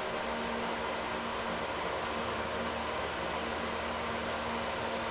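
Steady room noise: an even hiss with a faint, constant hum underneath.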